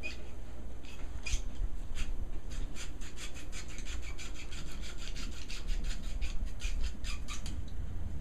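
Dog gnawing a raw marrow bone, teeth scraping and rasping against the bone in a quick, irregular run of scrapes.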